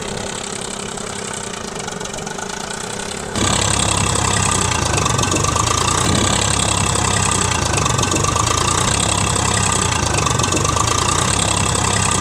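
A small motor running steadily, with a low hum under a noisy whir; it gets suddenly louder about three seconds in and then runs on evenly.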